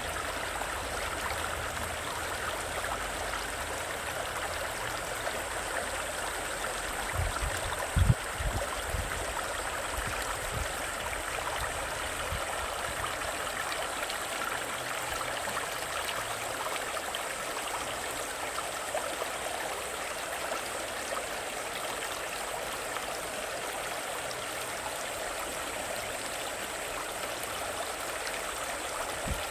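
Shallow stream babbling over rocks and pebbles, a steady rush of running water. A few short low thumps about eight seconds in, the loudest moment.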